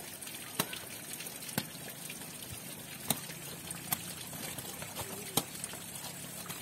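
Sharp knocks of a sepak takraw ball being kicked during a rally, about six spread irregularly over several seconds, over a steady hiss.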